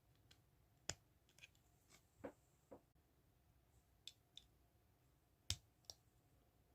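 Small plastic Lego pieces clicking and tapping as they are handled during a build: scattered sharp clicks, with two louder ones about a second in and later on.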